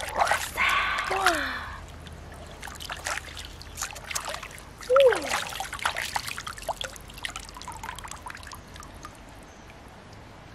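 Water splashing and trickling as hands rinse and rub a large freshwater pearl mussel in shallow water, busiest in the first two seconds, then scattered small splashes and drips as it is lifted out. A short falling vocal sound is heard about a second in and again, louder, about five seconds in.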